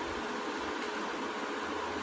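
Steady background hiss with a faint, even hum underneath, with no distinct eating sounds standing out.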